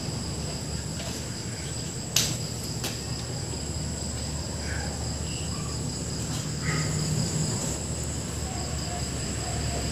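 Crickets trilling steadily in the background over a low hum, with two light clicks about two and three seconds in.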